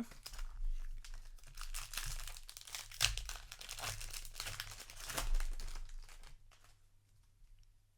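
Foil wrapper of a Magic: The Gathering set booster pack being torn open and crinkled, a dense run of rustling and tearing that dies down about six seconds in.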